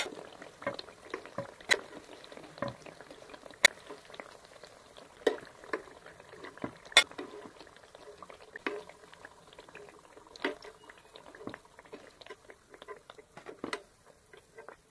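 Hot oil bubbling in a pan after a batch of eggplant pakoras has fried, with repeated sharp clicks and knocks of a metal spoon against the pan as the pakoras are lifted out.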